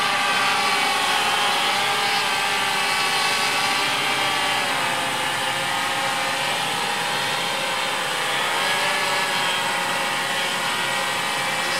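HexaCrafter 800 hexacopter's motors and propellers holding a hover: a steady multi-tone buzzing whine whose pitches drift slightly as the motors adjust.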